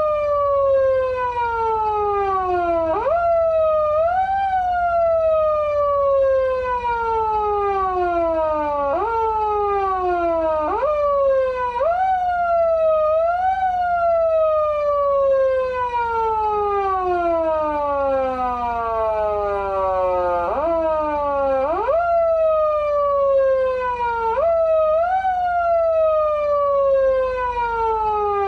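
Patlite SAP-500BK-PV electronic siren amplifier in foot-siren mode, the wail of a Japanese police car. Each press of the foot switch sends the pitch jumping sharply up, and each release lets it slide slowly down over a couple of seconds. The presses come at irregular intervals, sometimes twice in quick succession.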